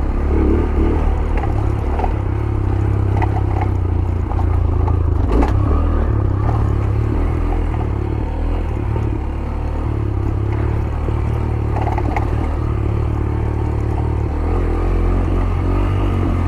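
Yamaha YBR 125G motorcycle's single-cylinder four-stroke engine running steadily at low revs, with scattered knocks and rattles from the bike jolting over a rough dirt track, the sharpest knock about five seconds in.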